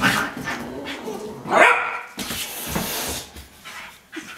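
Husky puppy barking and yipping up at a cat, the loudest a sharp rising yip about a second and a half in, with bursts of hissing between the barks.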